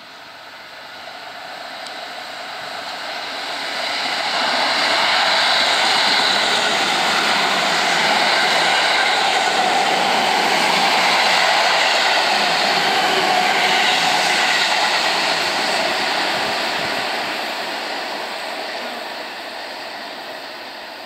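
Seibu Railway 9000-series electric commuter train passing through a station at speed without stopping. The rolling and running noise builds over about five seconds, stays loud for about ten seconds as the cars go by, then fades as it pulls away.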